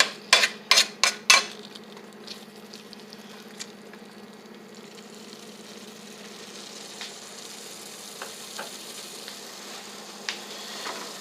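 A cooking utensil knocking and scraping against a frying pan in quick strokes, about five in the first second and a half, as the food is stirred. After that the food sizzles steadily in the pan, with a few faint clinks.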